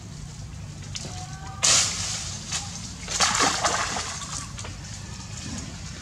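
Macaques splashing in shallow muddy water as they thrash and scramble up a tree trunk. There is a sudden loud splash just under two seconds in, and a second, longer burst of splashing a little after three seconds.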